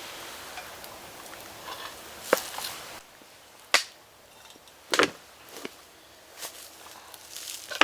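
Camp mugs and a cooking pot being handled as tea is poured out: a handful of sharp knocks and clinks, irregularly spaced, starting about two seconds in.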